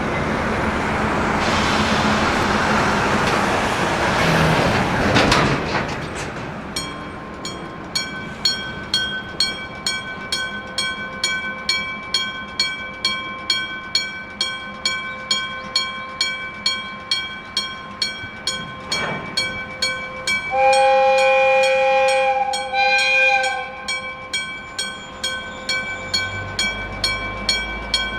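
A vehicle passes with a rushing noise. About seven seconds in, a Japanese electric-gong (dengshō-type) railroad crossing bell starts up: a mechanical hammer strikes the gong at an even pace, a little faster than once a second, each strike ringing on. About two-thirds of the way through, a train horn sounds two blasts over the bell, the first long and the second short, and a low rumble of the approaching train builds near the end.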